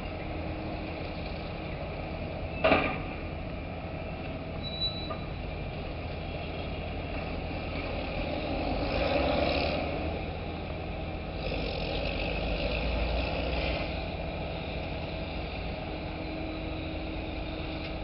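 Steady low rumble of heavy dockside machinery running. A single sharp knock comes about three seconds in, and two swells of louder noise come near the middle.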